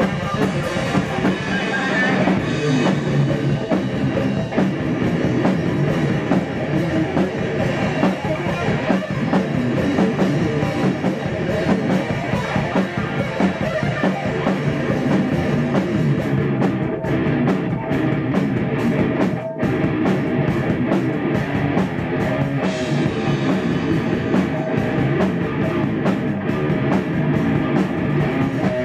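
Electric guitar and drum kit playing an improvised thrash/extreme-metal jam together, loud and dense throughout, with a momentary break about two-thirds of the way in.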